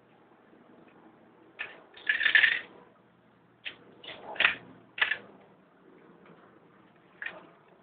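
Hard plastic toys clattering and knocking as a toddler handles them: several short clatters, the loudest a rattling burst about two seconds in.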